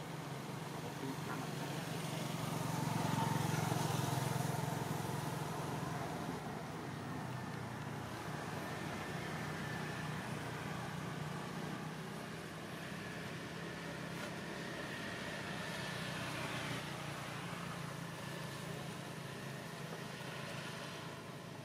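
Steady low rumble of motor vehicle traffic, growing louder for a few seconds about three seconds in as a vehicle passes.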